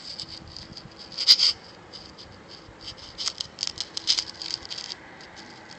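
Phone handling noise: irregular scratching and rattling clicks from fingers shifting on the phone near its microphone, sharpest about a second in and in a busy cluster around three to four seconds in.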